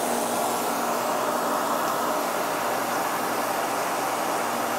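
Milling machine running an inch-and-a-half end mill as it is hand-fed into the face of a chrome-plated 1045 steel pad, under the steady hiss of NogaCool mist coolant.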